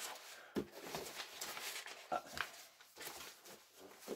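Large paper plan sheets rustling and crinkling as they are handled and leafed through, with a few short sharp clicks of paper and card against each other.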